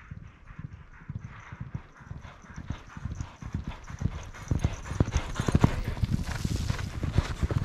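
Hoofbeats of a string of racehorses in training, many overlapping strikes that grow louder as the horses approach, loudest from about halfway on.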